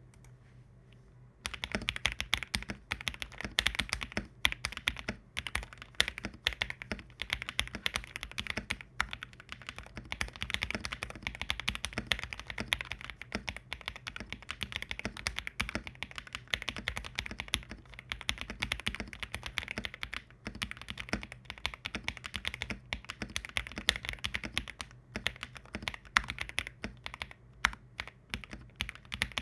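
Rapid, continuous typing on an NJ80 mechanical keyboard with Akko Matcha Green switches lubed with 205 and DMK keycaps, starting about a second and a half in. The owner finds it sounds kinda hollow.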